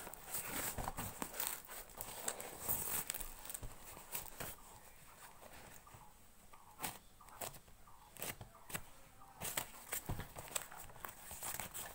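Packing tape and corrugated paper wrapping being cut and torn off a cardboard box by hand: irregular tearing, crinkling and scraping, with sharp strokes now and then.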